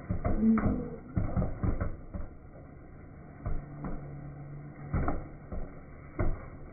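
Popcorn kernels popping in a popcorn machine's kettle, heard slowed down: irregular dull knocks, about ten of them, with a low steady hum between about two and five seconds in.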